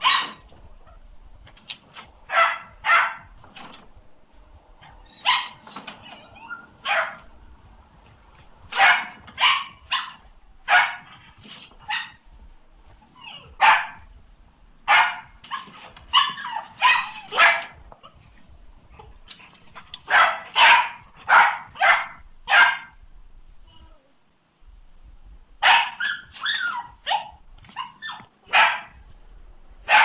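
Dog barking repeatedly: short barks in irregular runs of two to five, with pauses between the runs. The barking stops briefly about 24 seconds in, then resumes.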